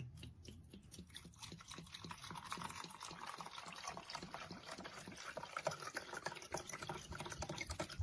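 Water being poured into the small reservoir of a single-serve coffee maker, a continuous splashing trickle with small drips, filling to about the 12-ounce mark.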